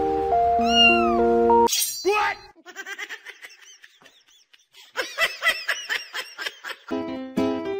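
Background music cuts off with a sudden sharp sound, then a cat makes a fast run of short, rising-and-falling meows, several a second, before plucked-string music starts again near the end.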